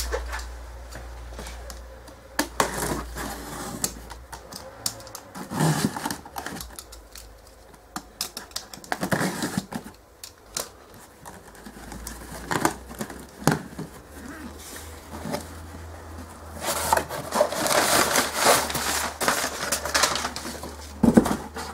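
Cardboard box being opened by hand: scattered knocks and scrapes of the cardboard, with rustling of paper and cardboard inserts that grows busier near the end.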